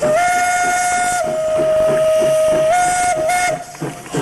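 Steam tank locomotive's whistle blown in one long blast of about three and a half seconds; its pitch drops a little about a second in, rises back near the three-second mark, wavers briefly, then cuts off.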